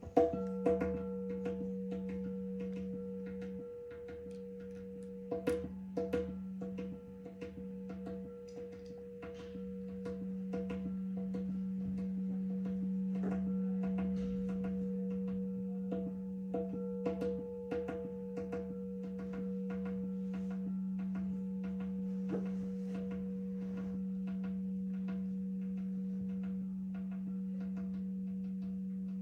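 Crystal singing bowls sounding a sustained low hum with a fainter higher tone, swelling slowly, while light quick taps, two to three a second, patter over them.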